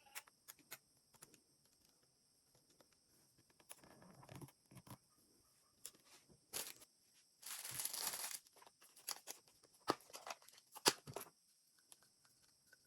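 Hands handling doll packaging: scattered clicks and rustles, with a tearing sound of about a second a little past the middle.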